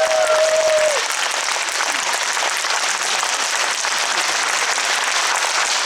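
Audience applauding in a concert hall; a held sung note dies away in the first second as the clapping swells.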